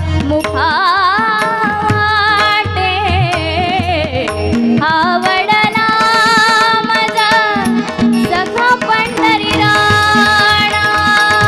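Marathi bhajan music: a woman singing a wordless, ornamented melody over steady held accompaniment tones, with drum strokes and sharp clicks throughout.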